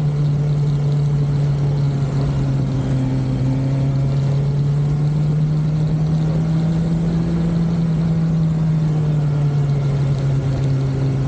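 BMW S1000XR motorcycle's inline-four engine running at steady revs while riding, its note rising slightly midway and easing back, with a steady hiss of wind.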